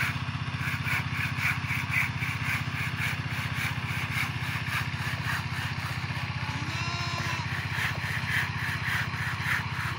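A small engine running steadily, with a fast even throb and a higher pulsing about three times a second over it.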